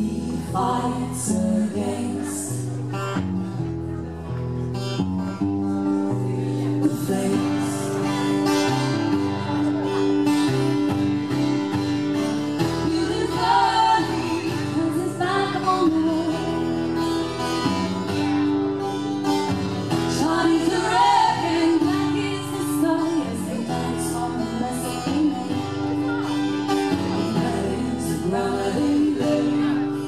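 Live music: guitars playing a steady, repeating chord pattern, with a singing voice in places.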